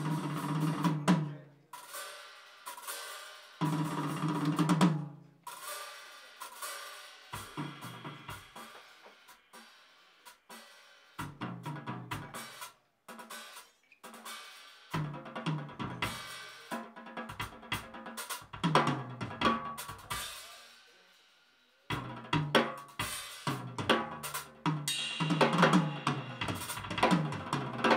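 Solo drum kit played live with Zion signature cymbals: phrases of snare, tom and bass drum hits with cymbal crashes, broken by brief pauses where the cymbals ring out, turning into dense continuous playing near the end.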